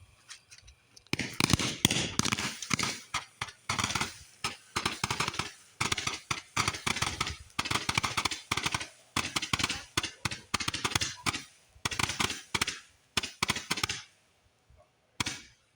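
Consumer fireworks going off in a rapid, continuous run of sharp cracks and bangs. The run starts about a second in and stops near the end, followed by one last bang.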